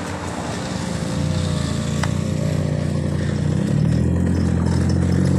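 A car's engine running steadily and growing louder as the car comes up close alongside and passes on a gravel road.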